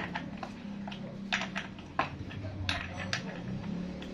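Outboard recoil starter being reassembled by hand: a metal tool clinks and scrapes against the starter pulley and its metal housing, with a handful of sharp clinks, most in the second half. A steady low hum runs underneath.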